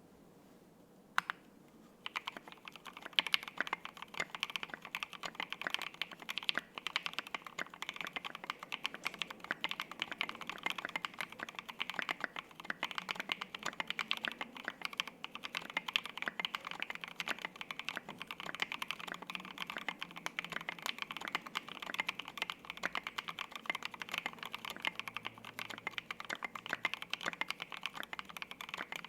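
Continuous fast typing on a custom 60% gasket-mount mechanical keyboard with lubed Lavender switches, SA-profile double-shot ABS keycaps and a flexible leaf-spring polycarbonate plate. A single keystroke comes about a second in, then dense, steady typing starts about a second later.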